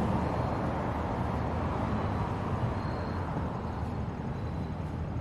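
Outdoor ambience of distant road traffic as a steady low rumble, with a few faint, short high tones about three seconds in and near the end.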